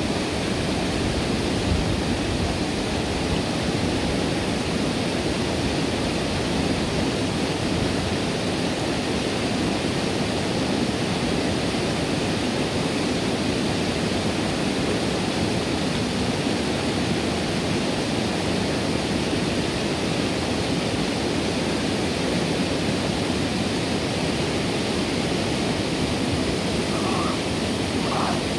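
River water rushing steadily over a two-metre stone bed ramp: a constant whitewater noise.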